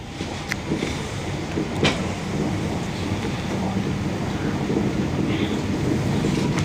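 Train running, heard from inside the passenger car: a steady low rumble of wheels on rails, slowly growing louder, with two sharp clicks in the first two seconds.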